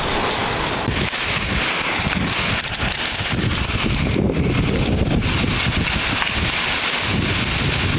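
Steady rushing, wind-like noise from outdoor air buffeting the microphone, with a low rumble beneath it; the hiss drops away briefly about four seconds in.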